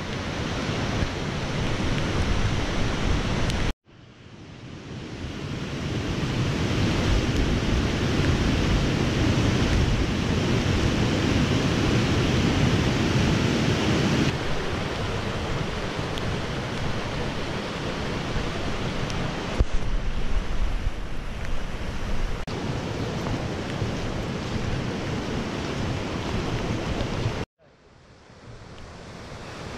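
Steady rushing of a swollen, muddy stream in flood, mixed with wind on the microphone. The sound cuts out briefly about four seconds in and again near the end, then fades back in.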